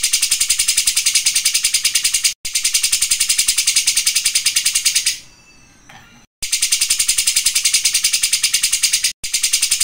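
Cucak jenggot (grey-cheeked bulbul) singing its fast, shrill rattling trill, even notes about ten a second, in long runs. The runs break off for about a second near the middle.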